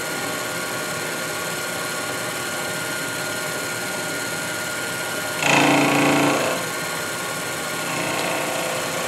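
Sherline mini milling machine's spindle motor running steadily with a fly cutter mounted, a constant mechanical hum with a few steady tones. About five and a half seconds in, a louder, rougher sound lasts for about a second.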